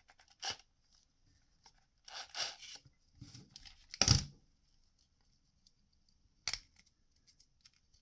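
Workbench handling noises from a cordless drill, not running: its keyless chuck is turned with short rasping clicks, and the drill is set down on the cutting mat with a thump about four seconds in. Light clicks follow as a step drill bit is fitted into the hole of a PVC part.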